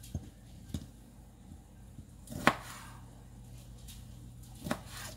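A kitchen knife cutting small tomatoes on a thin plastic cutting board: four separate sharp knocks of the blade on the board, the loudest about halfway through.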